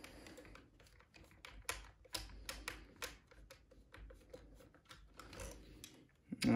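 Irregular light clicks and taps of a plastic toy and its batteries being handled, as the battery fitting of a Zizzle iZ speaker is checked.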